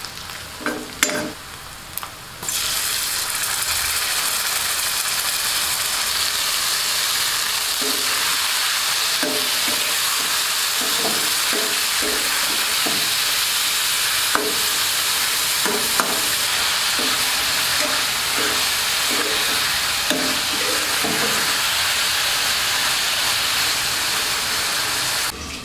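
Raw buffalo meat chunks frying in hot oil in a kadai: a steady, loud sizzle that starts suddenly about two and a half seconds in as the meat goes into the pan, with a spatula knocking and scraping against the pan as it is stirred. The sizzle cuts off just before the end.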